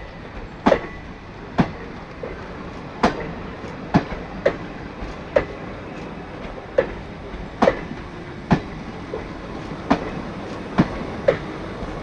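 Wheels of a passing parcel express train clacking over rail joints: sharp, irregular clicks one or two a second over a steady rumble of the rolling train.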